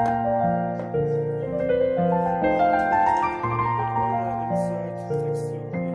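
Background piano music, a steady flow of sustained notes.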